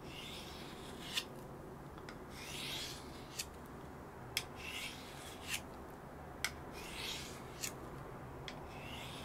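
Steel blade of a Pirat 'Starshina' knife scraping in short strokes about every two seconds, with sharp clicks in between.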